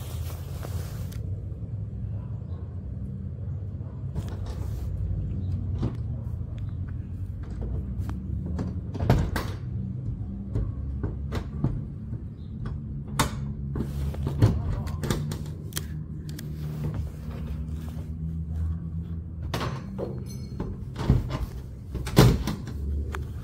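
Scattered knocks and clanks of an old sectional garage door as its sections are worked loose and taken down, over a steady low rumble.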